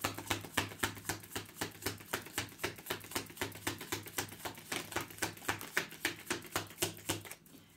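Tarot deck being shuffled by hand: a steady run of crisp card clicks, about five a second, that stops shortly before the end.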